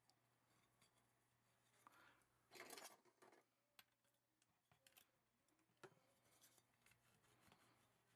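Faint scraping and small clicks of a pipe cleaner and a thin metal pick worked inside the M+M M10X rifle's trigger group, with one brief louder scrape about two and a half seconds in.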